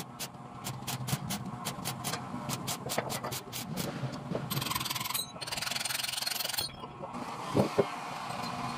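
Electric arc welding on a cylinder head's valve seat, laying weld inside the seat insert to loosen it for removal. It crackles fast and evenly for the first few seconds, then hisses steadily in two spells. Two sharp knocks follow near the end.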